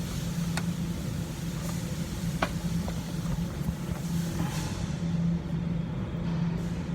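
A steady low engine hum, with a few light clicks.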